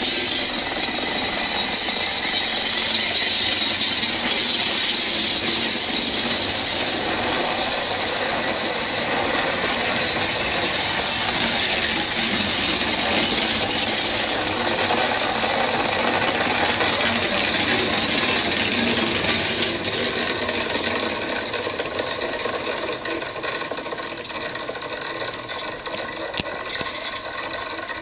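NS Plan U diesel-electric multiple unit rolling past, its wheels and bogies rattling on the track, with a steady high-pitched tone over the noise. The sound fades over the last several seconds as the train draws away.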